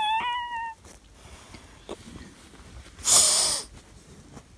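A child's voice making the sounds of a scared toy unicorn: a short high-pitched squeak that falls slightly in pitch, then about three seconds in a louder breathy snort.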